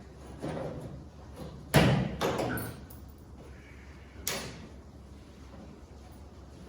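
A loud slam a little under two seconds in, followed by a couple of smaller rattling knocks, then another sharp knock a little past four seconds.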